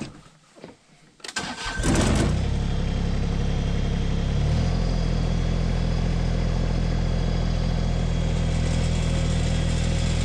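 New Holland Workmaster 25S compact tractor's three-cylinder diesel engine cranking and starting about a second and a half in, then running steadily. Its note shifts about four and a half seconds in and holds steady after that.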